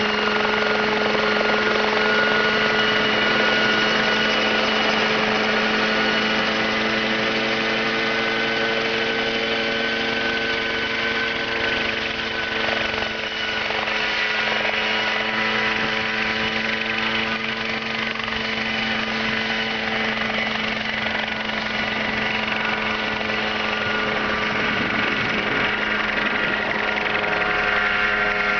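Homemade light helicopter's small piston engine and rotor running steadily with a fast, rattling pulse; its pitch sags slightly over the first half.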